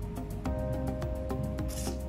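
Instrumental background music with held notes and a quick, steady beat. Near the end comes a brief rasping slurp as spaghetti is sucked into the mouth.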